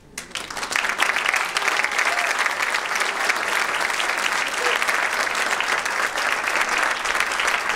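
Audience applauding: many people clapping, swelling up within the first second and then holding steady and loud.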